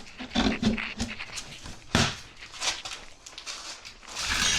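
A vinyl plank being handled and set into place on the floor: a few sharp knocks, the loudest about two seconds in, and a brief scraping slide near the end.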